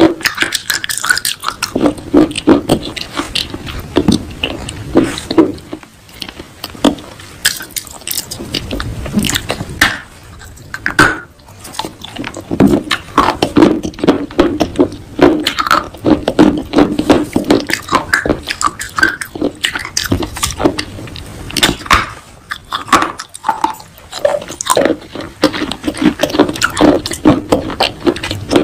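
Close-miked chewing and crunching of baked clay pot pieces: a dense run of sharp crackles and crunches, briefly quieter about eleven seconds in and again about twenty-three seconds in.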